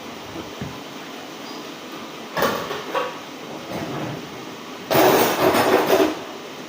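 Kitchen utensils clattering while beans and plantain are dished up: a knock and scrape about two and a half seconds in, then a louder scrape lasting about a second near the end.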